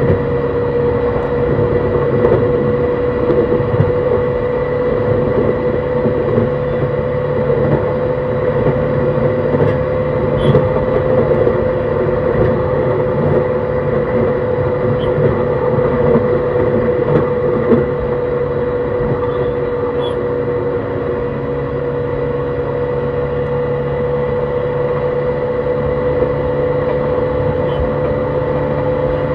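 E131 series electric multiple unit running at a steady speed, heard from inside the car. The Hitachi hybrid-SiC VVVF inverter and traction motors give a steady whine over the rumble of wheels on rail. The sound gets slightly quieter about two-thirds of the way through.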